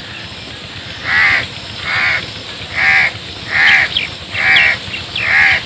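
A crow cawing six times in a steady series, about one harsh caw every 0.8 seconds, starting about a second in.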